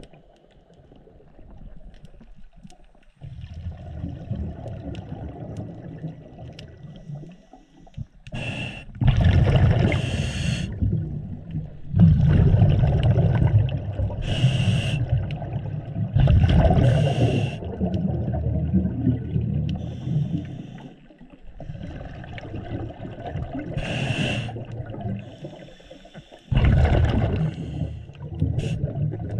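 A scuba diver breathing through a regulator underwater: short hissing inhalations, each followed by a loud rumble of exhaled bubbles, repeated several times with quieter gaps between.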